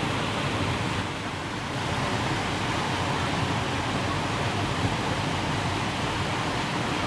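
Steady rush of water pouring over a low concrete weir into the river below.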